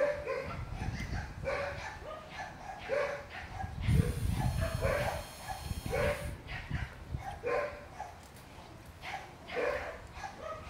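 A dog barking over and over, one short bark about every second and a half.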